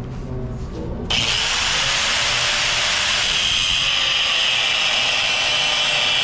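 Handheld angle grinder cutting in about a second in, then grinding steel clamped in a bench vise: a steady, loud, high-pitched grinding whine and hiss.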